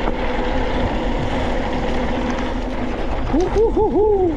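Mountain bike running downhill on a dirt trail: a steady rush of wind and tyre noise. Near the end, a voice gives four quick rising-and-falling hoots.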